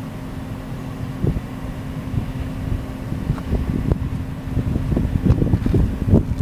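A 6.5 hp single-cylinder four-stroke gasoline engine running at a steady speed, its even hum underneath. Gusts of wind buffet the microphone, stronger near the end.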